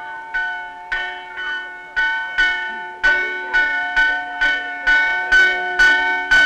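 Church bell rung in quick strikes, about two a second, each stroke ringing on over the next. The strikes grow louder.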